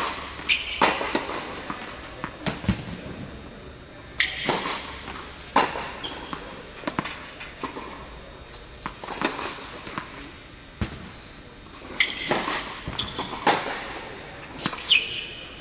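Tennis balls struck by rackets and bouncing on an indoor hard court, a string of sharp pops spaced a second or two apart that echo in the hall, with brief high squeaks from tennis shoes.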